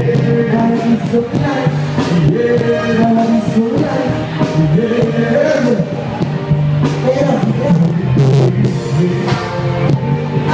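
Live dancehall song played by a band with keyboards, guitar and bass, with a male vocalist singing over it through the PA, recorded on a phone from the stage.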